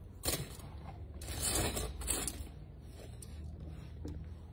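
Gold jewellery being handled by hand: a few short bursts of rustling and scraping.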